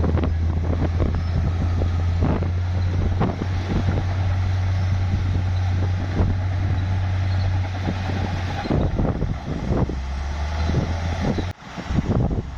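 Heavy bulldozer's diesel engine running steadily under load, with repeated clanks and knocks from the machine as it pushes dirt and rock. The engine note drops lower about nine seconds in, and the sound briefly cuts out near the end.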